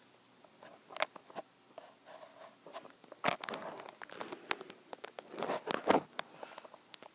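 Handling noises: scattered clicks and crinkly rustling, with the loudest bursts about three seconds in and again near six seconds.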